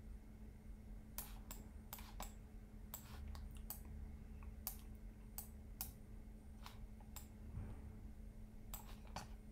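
Faint, irregular sharp clicks of a computer mouse and keyboard being worked, about a dozen scattered through, over a low steady hum.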